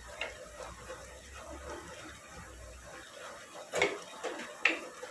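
Spoon stirring and scraping minced beef in a cooking pot, with two sharp knocks of the spoon against the pot near the end.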